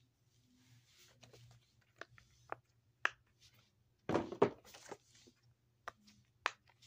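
Fidget toys being handled and set down: scattered light clicks and taps, with a louder burst of clattering and rustling about four seconds in.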